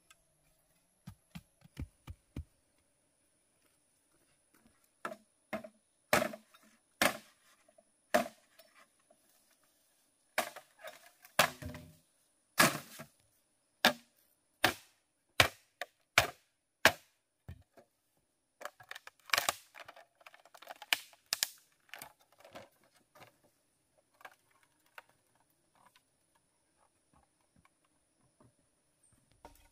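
A blade chopping, heard as irregular sharp knocks: some single, some in quick runs of two or three, with quiet gaps between them. A faint steady high whine runs underneath.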